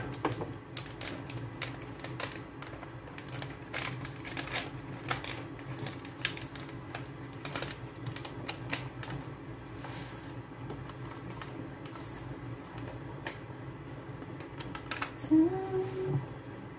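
Irregular light clicks and ticks from a lidded stainless steel pot of curry heating on the stove, not yet at the boil, over a steady low hum. A short pitched sound comes near the end.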